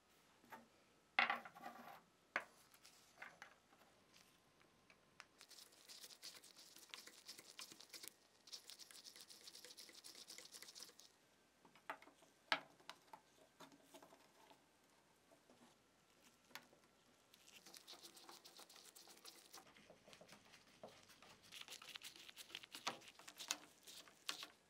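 Quiet hand work on a restoration piece: scattered light clicks and knocks, with several stretches of rubbing or brushing noise lasting a few seconds each.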